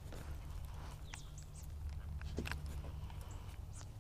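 Quiet open-air ambience: a low steady rumble with a few short, scattered bird chirps.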